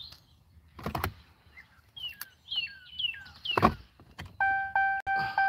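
A car's door-open warning chime dinging rapidly and steadily, about three times a second, starting near the end. Before it come a knock, a few falling chirps and a thump.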